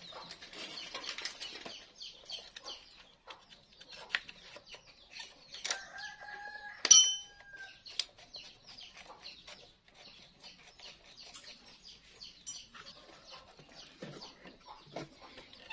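Light clicks and rattles of a new motorcycle carburetor being handled and fitted onto the engine. About six seconds in, a drawn-out chicken call lasts a couple of seconds, with a sharp click at its peak.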